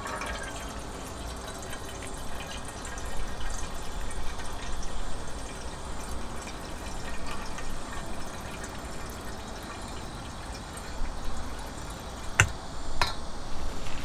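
Steady sound of water or liquid, with two sharp clicks near the end.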